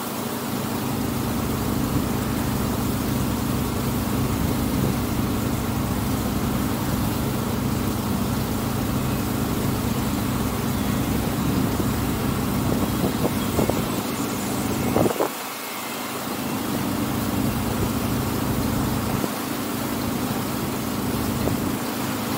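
Engine of the Tuula II, a wooden passenger water bus, running steadily: a low, even drone that dips briefly about fifteen seconds in.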